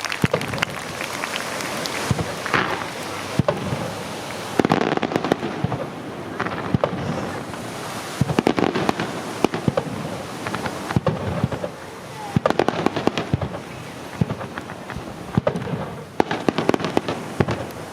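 Aerial fireworks display: a dense run of bangs and crackling bursts, swelling in several louder waves.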